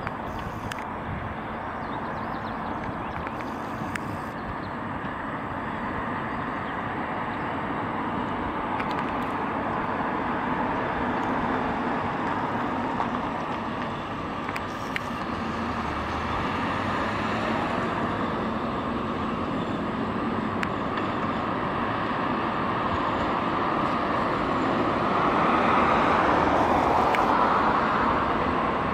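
Street traffic with a tram and a car approaching: a steady rumble of wheels and road noise that grows gradually louder, loudest near the end.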